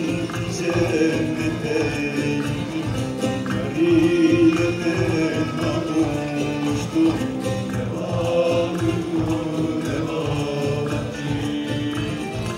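Live Turkish folk music: a male voice singing over a bağlama (long-necked Turkish lute), with ensemble accompaniment and a steady percussion beat.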